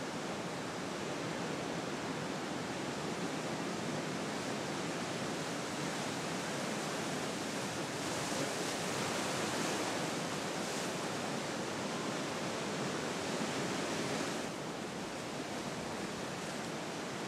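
Steady rush of ocean surf, swelling a little in the middle and dropping slightly near the end.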